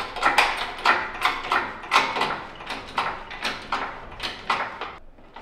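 Hand pump of a hydraulic shop engine hoist being stroked: a quick, even series of metallic clicks and clanks, about three a second, fading toward the end, as the hoist takes up the weight of an engine.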